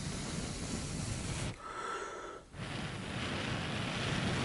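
Air blown out in two long breaths with a short pause between them, cooling freshly applied hot glue.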